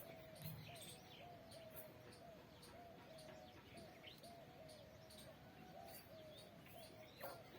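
Squirrel chirping, faint: short, evenly repeated calls at about two a second, with scattered sharp high ticks between them.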